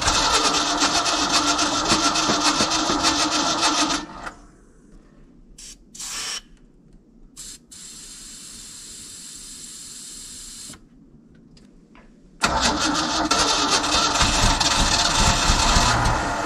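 Starter cranking over the engine of an old Ford medium-duty truck in two long stretches, with a quiet gap of about eight seconds between them. The gap holds a brief hiss and a few clicks, and the second stretch tails off near the end.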